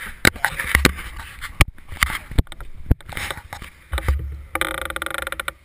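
Road bicycles stopping at a corner, heard from a handlebar-mounted camera: scattered sharp clicks and knocks, then about a second of rapid, even ticking near the end.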